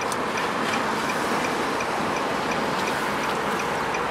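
Steady background noise with faint, evenly spaced high ticks.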